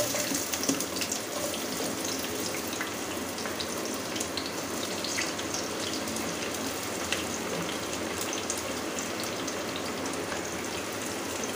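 Sliced onions sizzling in hot oil in a kadhai, a steady sizzle with scattered small crackles as handfuls are dropped in.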